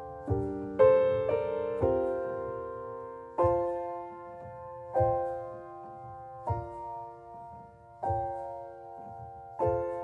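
Background music: gentle piano chords struck about every second and a half over a soft low beat.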